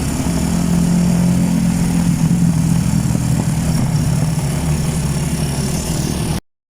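Engine of a moving road vehicle running steadily with a low hum, heard on board. The sound cuts off abruptly near the end.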